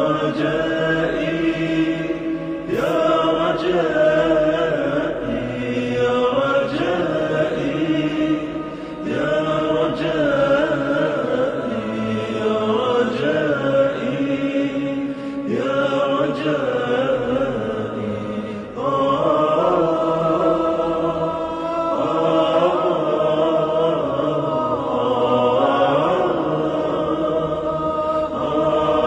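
Background music: an Arabic devotional song in a passage between its sung verses, carried by long, gliding melodic phrases.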